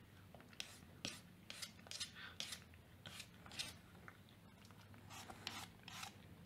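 Cat licking: a faint series of short rasping strokes, about two a second, with a short pause about four seconds in.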